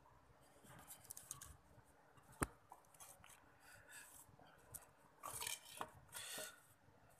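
Faint rustling and rubbing of a hand and kitten fur close to the microphone, with one sharp click about two and a half seconds in and a few louder hissy rustles near the end.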